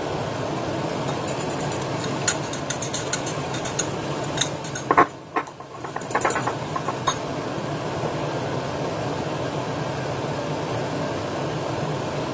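Steady rushing of a kitchen extractor fan, with light clinks of a utensil against a pan and bowl through the first seven seconds or so. The background dips briefly about five seconds in.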